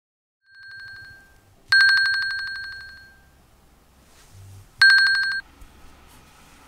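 Apple Watch alarm ringing: a rapidly pulsing high beep tone that sounds faintly, then loudly in two bursts, the last one cut off suddenly as the alarm is stopped.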